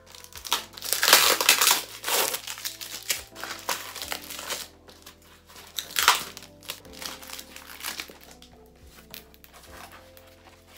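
Plastic and cardboard packaging crinkling and rustling as a mail package is opened by hand, loudest in the first couple of seconds and again about six seconds in.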